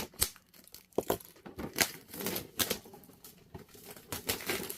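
Toy packaging being handled and torn open by hand: an irregular run of sharp tearing, crinkling rustles and clicks as a blind-box vinyl figure is unwrapped.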